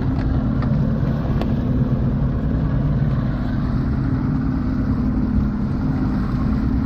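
Evinrude V6 outboard motor running steadily at trolling speed, a constant low drone over the rush of water from the wake.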